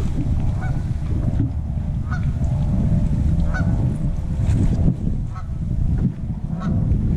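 Wind rumbling steadily on the microphone, with short honk-like calls from waterfowl repeating irregularly about once a second.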